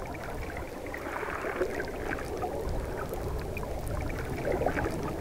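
Underwater ambience: a steady, low watery rush with faint scattered clicks.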